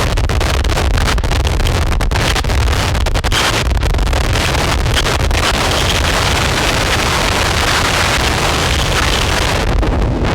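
Harsh noise from a chain of distortion and fuzz effects pedals, including Death By Audio pedals and a BOSS Metal Zone: a dense, loud wall of distorted noise with no clear pitch, flickering with brief dropouts.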